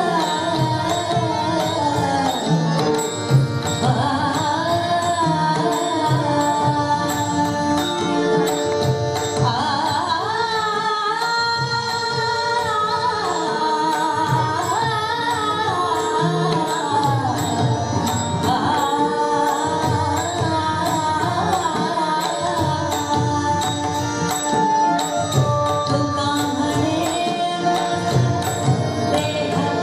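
Marathi devotional abhang performed live: a melody sung with gliding, ornamented lines over harmonium and the drumming of tabla and pakhawaj.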